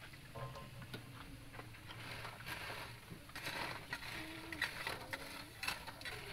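Crispy fried chicken skin and intestines being turned with a metal spatula in a wire draining basket: scattered light clicks and scrapes of metal on mesh and crisp pieces, over a steady low hum.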